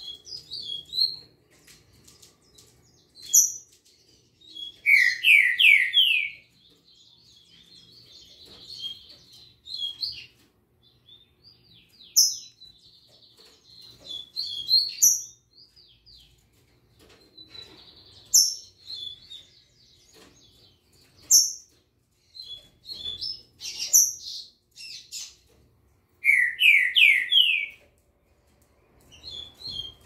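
Caged songbirds chirping and singing: scattered sharp high chirps and a fast twittering warble, broken twice by a quick run of loud, lower notes, about five seconds in and again near the end.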